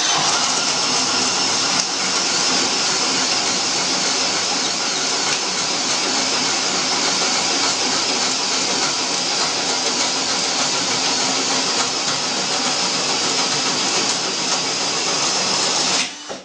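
Keyang DD 1441L cordless drill/driver running steadily at speed, then cut off near the end.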